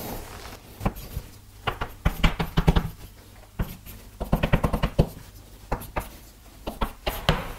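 Handwriting with a pen: a series of short taps and scratching strokes in several bursts, with pauses between them.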